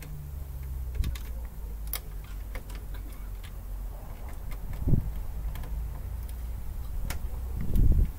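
Scattered small clicks and taps of wires and metal parts being worked by hand inside a small electrical breaker panel as the neutral and ground wires are tied in, over a low wind rumble on the microphone. Two louder low thumps come about five seconds in and near the end.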